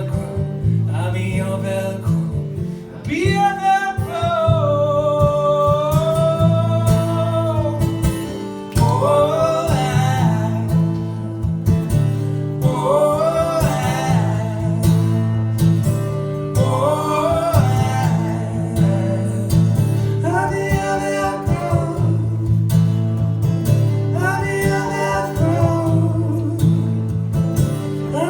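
Live acoustic guitar strumming under a singing voice that holds long, wavering notes in phrases every few seconds.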